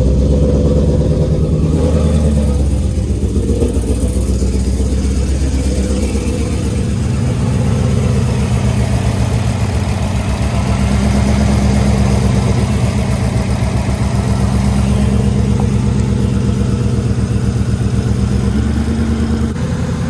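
Ford Mustang S550's 5.0 V8, fitted with a freshly installed VMP Gen3R supercharger, running at a steady idle just after its first start-up following the install.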